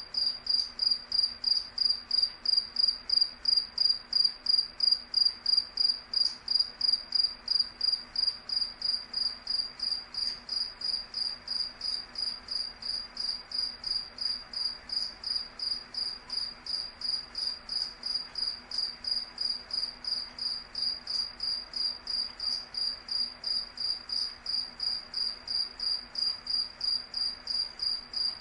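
A cricket chirping: one high, steady-pitched chirp repeated evenly, about three times a second.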